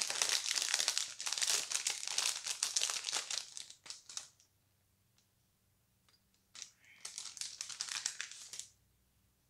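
Crinkly packaging being handled and unwrapped by hand, in two spells: about four and a half seconds of crinkling, a pause of about two seconds, then two more seconds of crinkling.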